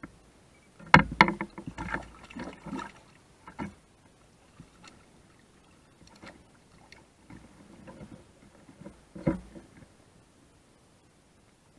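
Irregular knocks and clatter of gear or a paddle against a kayak hull, the sharpest knock about a second in and another near the end, with quieter handling noise between.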